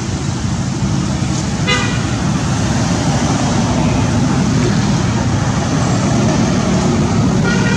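Steady low rumble of motor vehicle traffic, with two brief high-pitched sounds, one about two seconds in and one near the end.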